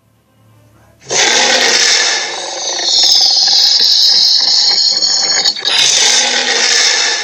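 Sound effect for a made-up monster, the Lochnessgator: a loud, harsh, hissing rasp that starts suddenly about a second in. It runs in two long stretches with a brief break around five and a half seconds.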